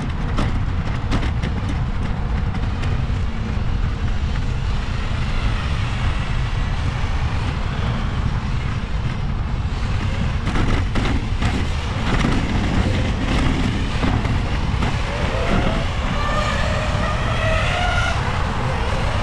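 Wind rushing over the microphone and rolling noise while riding a bicycle along a park path, with a few clicks and rattles about ten seconds in. Near the end a person's voice is heard briefly.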